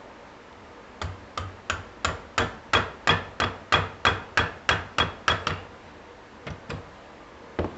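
A hammer striking starter-motor parts on a workbench: a quick run of about fourteen blows, roughly three a second, then a few lighter taps near the end.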